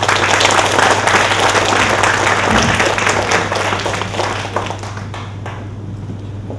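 Audience applauding, dense at first and dying away about five seconds in.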